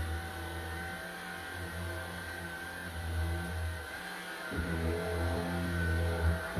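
Cordless stick vacuum cleaner running as it is worked over an armchair's upholstery, a steady motor whine whose note dips and shifts a little past halfway as the head moves over the seat and back.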